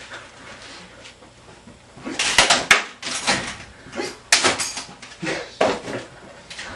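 Thrown floppy disks hitting walls and furniture: a quick run of clattering knocks about two seconds in, then a few single knocks.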